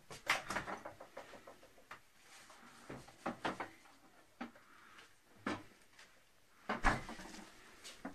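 Refrigerator door opened and a metal baking tin lifted out: a series of clicks, knocks and clatters, the loudest a low thump about seven seconds in.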